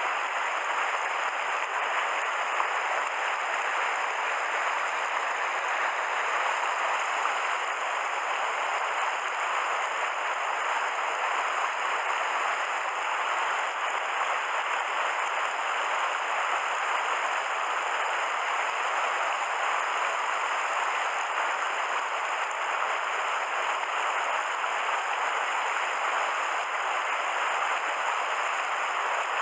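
Mountain stream water rushing over rocks, a steady, even sound.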